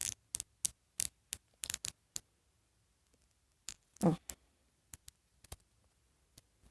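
Small plastic clicks and taps as an LOL Surprise doll and its tiny plastic clothes and accessories are handled: a quick scatter of sharp clicks in the first two seconds, then a few more, with a brief softer rustle about four seconds in.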